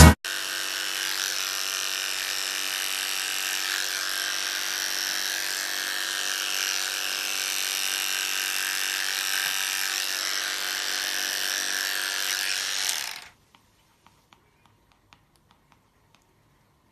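A small electric motor running with a steady whine, cutting off about 13 seconds in.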